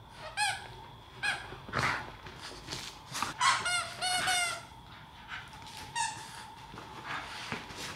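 Squeaker in a plush dog toy squeaking in short bursts as two dogs bite and tug at it, with a quick run of four squeaks a little past the middle and brief scuffling between.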